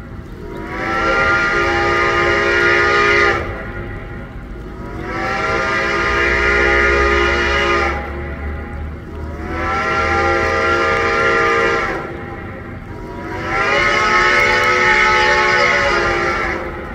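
Reading & Northern T1 No. 2102 steam locomotive sounding its whistle in four long blasts of about three seconds each, several notes sounding together as a chime, with a steady low rumble underneath.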